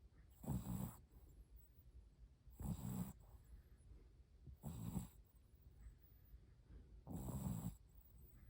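Shih Tzu puppy snoring in its sleep: four short snores, about one every two seconds.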